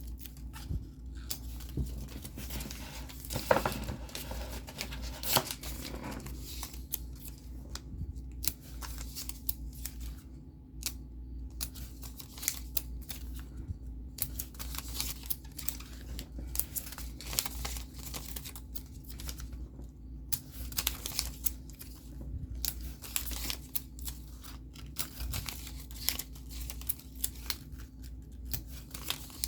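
Paper and craft materials being handled: irregular rustling, crinkling and short sharp clicks.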